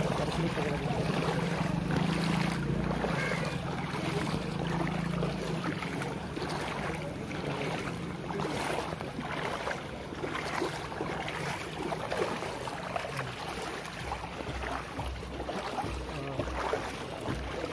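Floodwater sloshing and splashing in irregular strokes as someone wades through it, with wind rumbling on the microphone.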